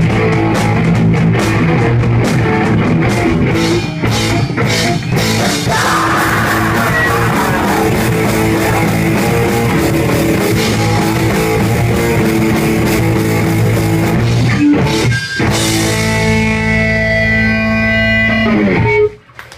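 Live hardcore punk band playing loud, with electric guitar and drum kit. About sixteen seconds in the band holds a final ringing chord, which cuts off abruptly just before the end: the song finishing.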